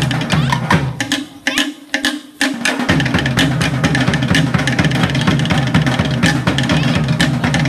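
Fast Tahitian percussion for 'ori Tahiti dancing: rapid wooden slit-drum strokes over a low, repeating drum beat. The drumming drops away briefly about a second and a half in, then picks up again at full pace.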